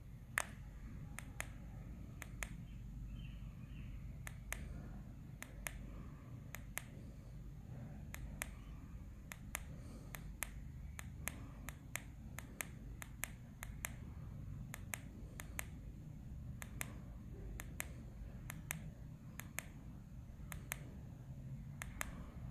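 Short, sharp clicks at an uneven pace, often in quick pairs, from the push buttons of an S830 e-bike display's control pad being pressed to step through its setup parameters. A low, steady hum lies underneath.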